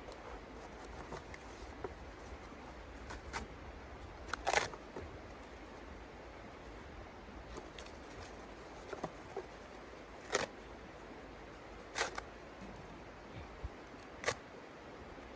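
A steady soft hiss with scattered sharp clicks and taps, four of them louder and spread a few seconds apart.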